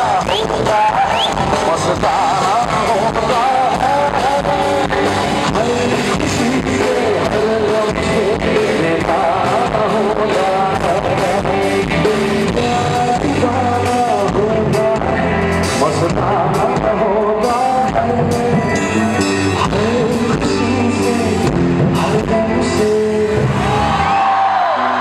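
Male vocalist singing live into a microphone, backed by a band with drum kit, hand drums and electric guitar.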